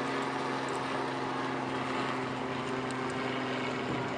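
A steady engine drone over wind noise; the hum fades out near the end.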